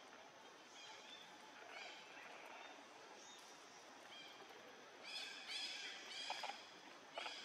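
Faint outdoor background with a few weak chirps, then, from about five seconds in, a run of short high-pitched animal calls, several in quick succession and more near the end.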